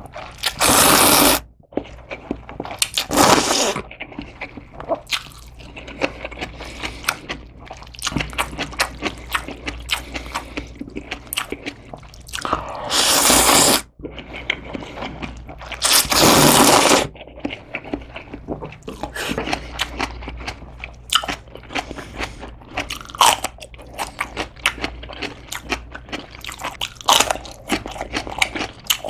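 Close-miked eating sounds: about four long, loud slurps of thin wheat noodles in anchovy broth, with steady wet chewing and crunching in between.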